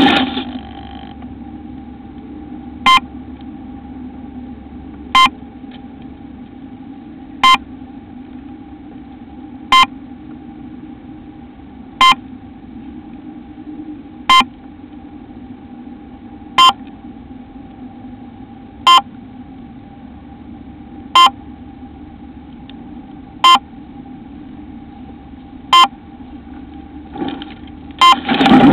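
Onboard electronic beeper of a downed radio-controlled model plane giving a short beep about every two and a quarter seconds, over a steady low electrical hum. There is a burst of louder noise near the end.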